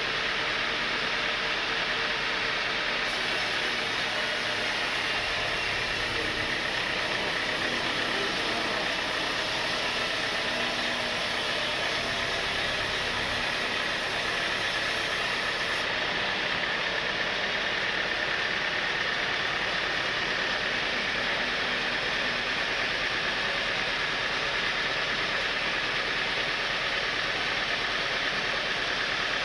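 Sawmill machinery running steadily, a constant mechanical noise with no breaks or changes.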